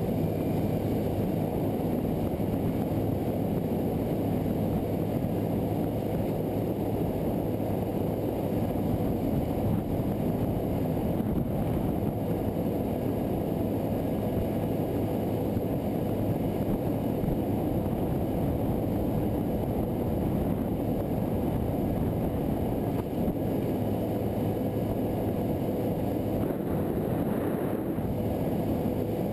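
A center-console bay boat's motor running at an even, steady speed while the boat is underway, with a constant rush of water and hull noise.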